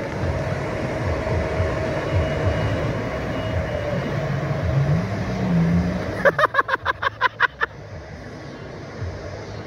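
Engine running with a steady noise, rising in pitch and holding about five seconds in as it is throttled up, as a jet ski does when driving off a sandbar. Just after, a rapid run of about ten sharp clicks lasts about a second and a half.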